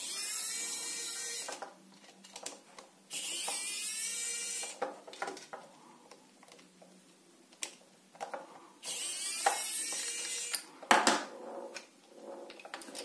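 Plastic parts of a soap dispenser's small pump being worked apart by hand: three scraping, grinding stretches of about a second and a half each, with small clicks and taps between them.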